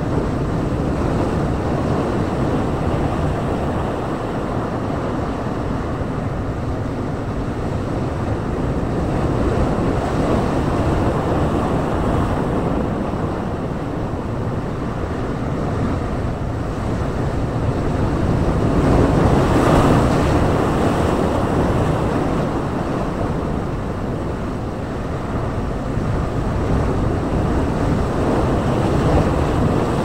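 Sea waves breaking over and surging between rocks on a rocky shore: a continuous rushing wash that rises and falls in slow swells, loudest about two-thirds of the way through.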